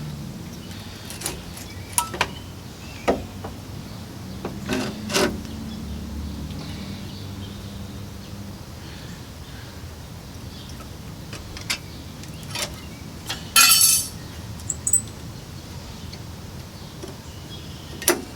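Scattered metal clicks and clinks of brake parts and hand tools being handled while the rear brake pads come off the caliper bracket. A brief, louder metallic rattle comes about two-thirds of the way through.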